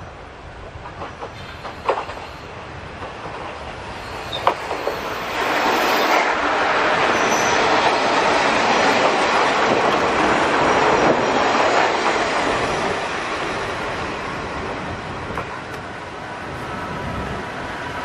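Kominato Railway diesel railcars, a KiHa 40 and a KiHa 200, rolling along the platform close by. A few sharp wheel clicks over the rail joints come first. The train's running noise then swells loud about five seconds in and eases off after about twelve seconds.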